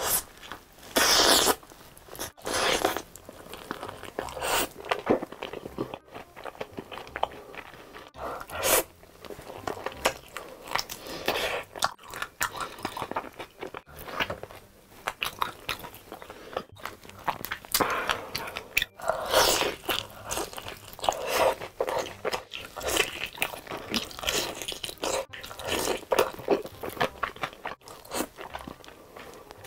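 Close-miked biting and chewing of sweet sauce-glazed fried chicken: crunchy crackling throughout, with louder bites now and then.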